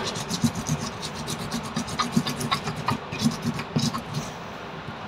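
Stone pestle grinding red chilies in a grey stone mortar (cobek and ulekan): repeated rough scraping strokes of stone on stone.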